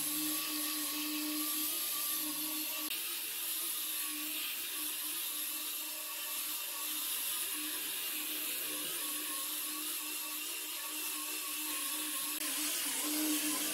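Electric power tool running steadily with a whirring motor hum that wavers slightly in pitch.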